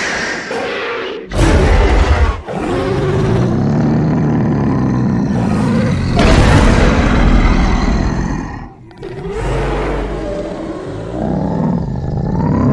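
Sound-design dragon roars: a run of long, deep roars and growls over a heavy low rumble, breaking off briefly about two and a half seconds in and again near nine seconds.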